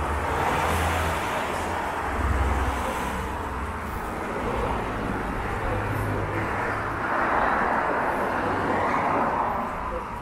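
Road vehicle noise: a low engine drone under a broad rushing noise that swells and fades twice, at the start and again about seven seconds in.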